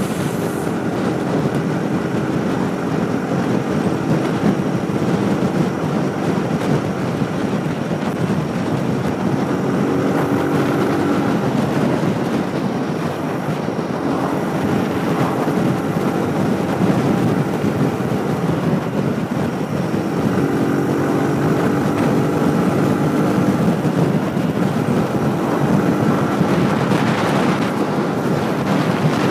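Motorcycle engine running at road speed under way, mixed with wind rushing over the helmet-mounted camera.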